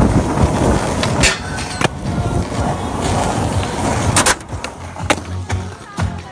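Skateboard wheels rolling on rough concrete with a steady rumble, broken by several sharp clacks of the board hitting the ground, the loudest a quick double clack about two-thirds through. After that the rolling is quieter, with a few lighter clacks.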